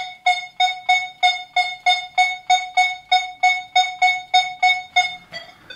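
Nokta Makro Legend metal detector sounding its target tone: a run of short beeps of the same mid pitch, about three a second, stopping about five seconds in. It is responding to a silver ring laid on top of a tin can lid.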